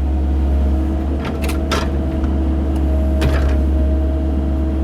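Cat 308 mini excavator's diesel engine running with a steady low drone, with a few short, sharp scraping or hissing noises from the digging a little over a second in and again past three seconds.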